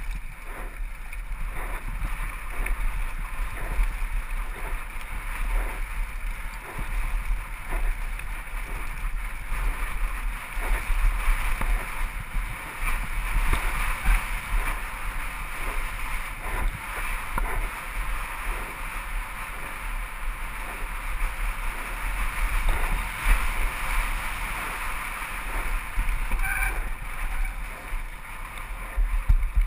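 Wind rushing over the microphone of a helmet-mounted camera on a downhill mountain bike, with a steady rumble and the repeated knocks and rattles of the bike over rough, rocky dirt trail. A brief high squeak sounds near the end.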